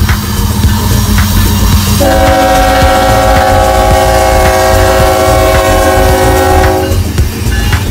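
CSX diesel freight locomotives passing close by with a heavy low rumble. About two seconds in, the lead locomotive's air horn sounds one long blast of several notes at once, lasting about five seconds.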